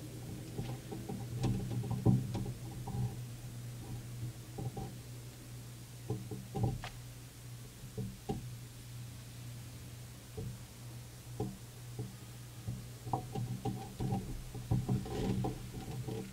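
Scattered soft knocks and clicks from handling at the altar, the chalice raised and set down and the priest moving, over a steady low hum.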